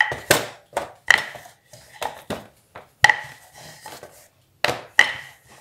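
Rolling pin rolling out dough on a metal worktop, knocking against the metal sheet in a series of irregular knocks, several with a short metallic ring.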